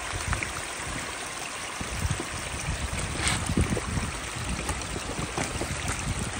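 Small mountain stream running over rocks, a steady rush of water, with a few faint footsteps on rock.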